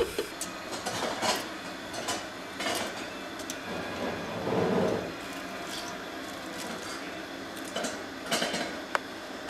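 Kitchen clatter: scattered clinks and knocks of a pot lid, dishes and utensils being handled, with a denser rustle and clatter about halfway through and a few more knocks near the end as a cupboard is opened.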